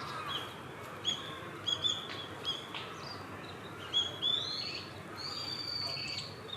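Small tits calling: a series of short, high chirps, some sweeping upward, then one long, thin, held high note lasting over a second near the end.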